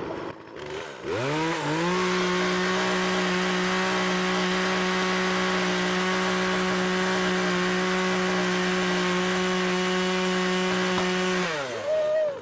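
Chainsaw engine revved up from idle and held at a steady high speed for about nine seconds, then let off. Near the end it gets one more short blip of throttle.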